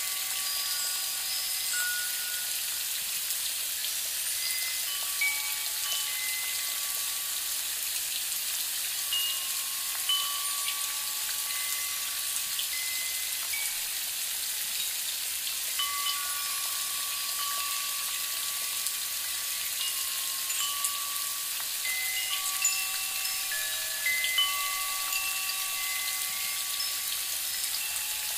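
Wind chimes ringing at irregular moments, single clear tones overlapping, over a steady hiss.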